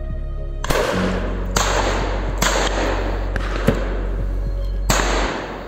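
Shotgun shots from a driven pheasant shoot, about five sharp reports a second or so apart, each with a short echo, over background music with steady low notes that stop near the end.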